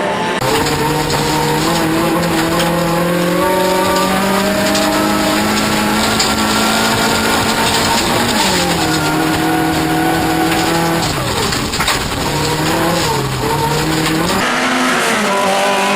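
Toyota Corolla off-road race car's engine running hard under load, with tyre and skidding noise. The revs hold and climb slowly, drop sharply about eight seconds in, then rise and fall several times in quick succession near the end.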